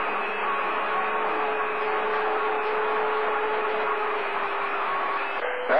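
CB radio receiver on channel 28 hissing with steady static between skip transmissions, with a faint steady whistling tone under it. The static drops out abruptly just before the end.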